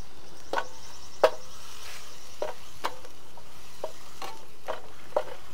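Spatula stirring curry paste in a non-stick frying pan: irregular taps and scrapes about once every half second over a steady sizzle.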